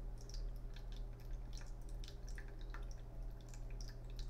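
Faint low steady hum with scattered soft ticks and clicks.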